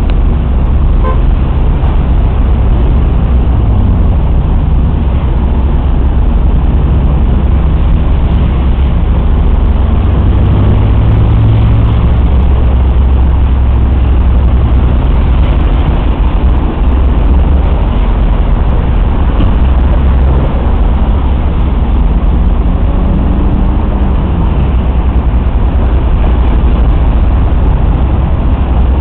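Road traffic: a steady heavy rumble of vehicle engines, with engine notes slowly rising and falling as vehicles pass.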